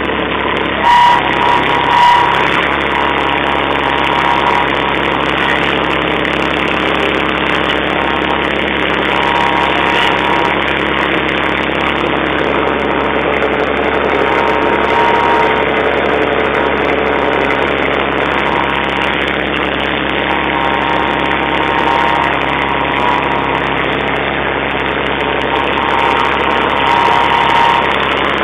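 IMT 542 tractor engine running steadily while the tractor pulls a mounted tillage implement through the soil, heard close up from the driver's seat. A couple of brief louder knocks come about one and two seconds in.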